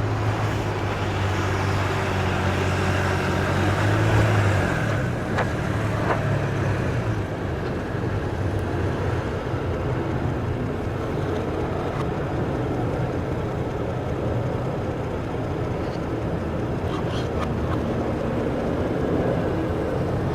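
A motor vehicle's engine hums, loudest about four seconds in, and fades out about five seconds in. A steady wash of snowstorm street noise continues underneath.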